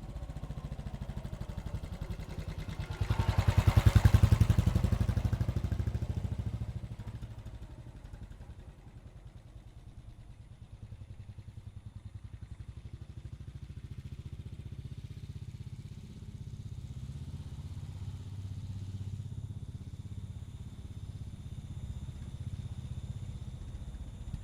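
Royal Enfield Bullet's single-cylinder engine running with a steady low thump; about three seconds in it surges loud for a few seconds, then eases back to an even idle.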